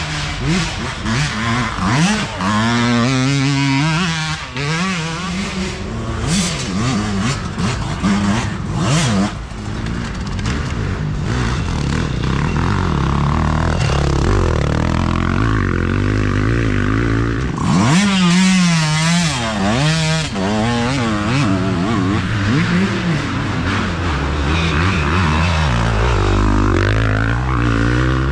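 Dirt bike engines revving hard as racers ride past one after another, their pitch climbing and dropping with the throttle and gear changes, with several bikes often heard at once.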